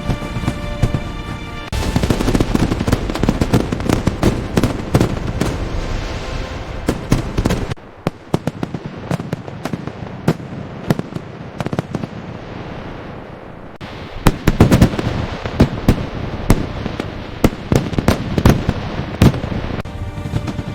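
Fireworks display bursting in rapid volleys of bangs and crackle, thinning to scattered single bangs for a few seconds in the middle before building up again. Music plays under it at the start and again near the end.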